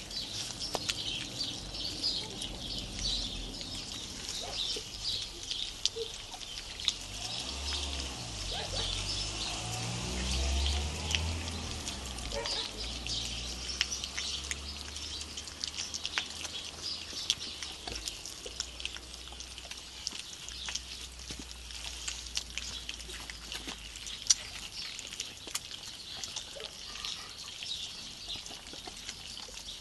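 A litter of young puppies eating from a shared dish: a steady stream of small wet clicks of lapping and smacking. A low rumble runs under it through the middle stretch.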